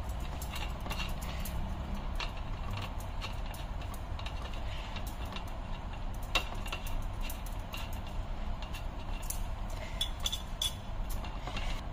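Light clinks and taps of a small brass idol being handled and set down on a brass plate, scattered irregularly, the sharpest about six seconds in, over a steady low rumble.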